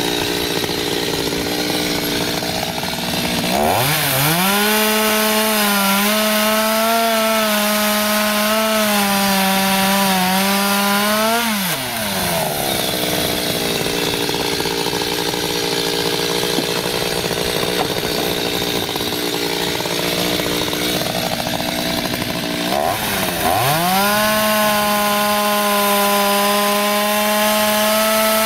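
Two-stroke chainsaw cutting through wooden bridge piles. It idles, revs up to full throttle about three seconds in and holds there, wavering slightly, through a cut of about eight seconds, drops back to idle, then revs up again for another cut near the end.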